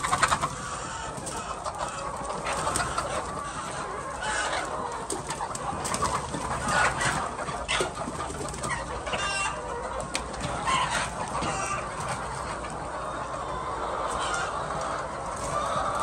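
A large flock of white laying hens clucking and chattering together, with louder individual squawks here and there. There is a brief loud flurry right at the start.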